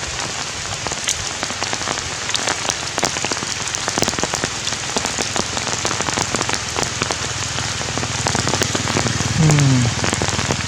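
Heavy rain falling steadily, with many individual drops striking close by. Near the end a brief low pitched sound falls in pitch, the loudest moment.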